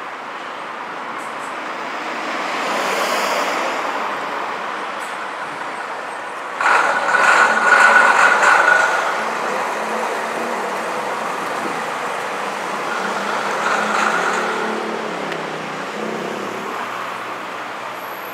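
Vintage diesel coach's engine running as it pulls round a road junction and passes close by. Just over six seconds in there is a sudden loud burst of noise with a high steady whine, the loudest moment, and a fainter whine returns about halfway through.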